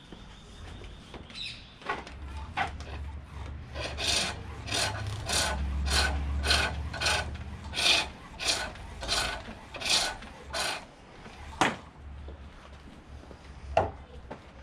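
Pole lathe turning a green silver birch blank: a hand-held turning tool cuts the spinning wood in a run of rhythmic scraping strokes, about two a second, one with each down-stroke of the treadle. A few single knocks come before and after the run.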